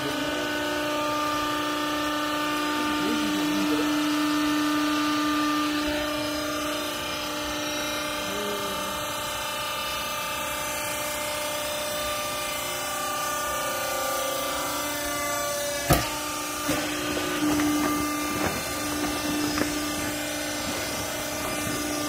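Hydraulic pump motor of a vertical used-clothes baler running with a steady hum and whine while the press plate drives down to compress the clothes. A sharp knock about sixteen seconds in, followed by a few lighter knocks.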